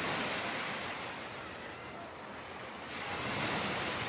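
Ocean waves washing ashore: a rushing surf that swells, eases off about halfway and swells again near the end.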